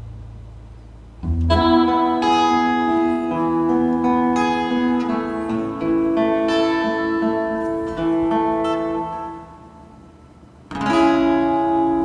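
Music from a multitrack recording of a live show, played back through a mixing console: sustained notes over a low bass. The music starts about a second in, dies away near the tenth second and comes back about a second later.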